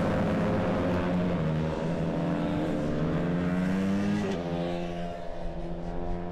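Moto3 racing motorcycle engines at high revs. Their pitch climbs as the bikes accelerate, then drops abruptly about four seconds in.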